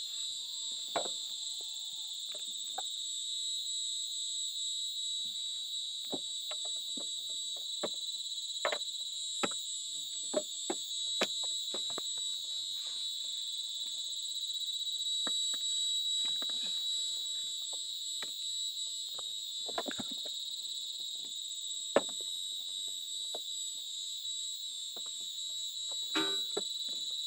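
Steady, high-pitched drone of insects, with scattered light clicks, snaps and knocks on top. The brush cutter engine is not running.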